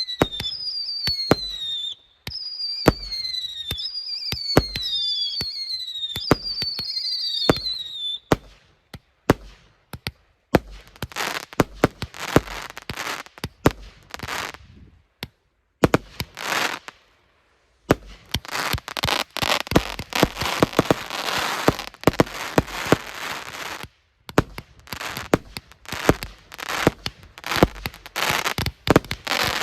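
A 150-shot firework cake firing in rapid succession. For the first eight seconds or so each shot carries a falling whistle; after that the shots burst into dense crackling, with a few short pauses between volleys.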